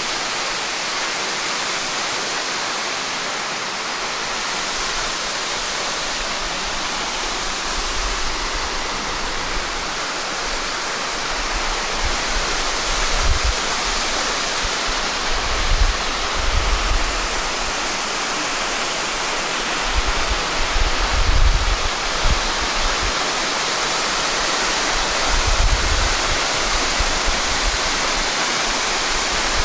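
Waterfall cascading down a rock face into a plunge pool: a steady, dense rush of falling water, with occasional short low rumbles in the second half.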